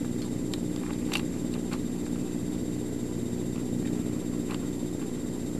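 Steady low background hum, with a few faint light clicks of the small plastic figure being handled.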